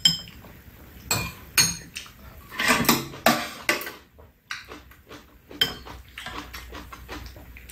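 Stainless-steel chopsticks and spoons clinking against ceramic bowls and a metal serving tray during a meal: a scatter of short, sharp clinks and taps, with a brief lull about four seconds in.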